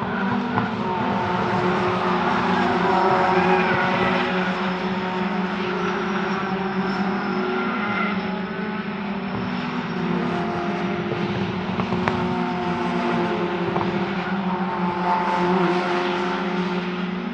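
Racing car engines running, several at once, with overlapping pitches held at fairly steady revs that rise and fall gently.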